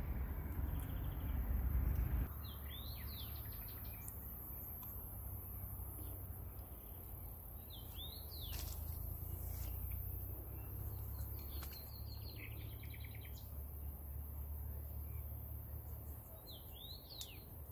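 Small songbirds chirping in a few short, sweeping phrases spread through the stretch, one a quick rapid series, over a steady low rumble.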